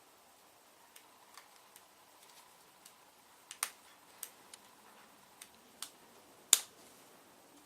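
Irregular small clicks and taps of hand tools and metal parts being handled, with one sharper click about six and a half seconds in.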